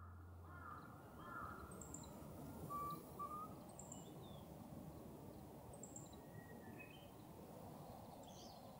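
Wild birds calling over a faint, steady outdoor background hiss. Short high chirps repeat about every two seconds, with a few lower calls mixed in; the loudest is a pair of calls about three seconds in.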